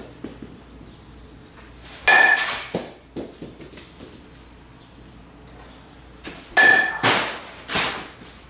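Metal baseball bat hitting a baseball twice, about four and a half seconds apart, each a sharp ping with a short ring. Each hit is followed within a second by smaller knocks and thuds.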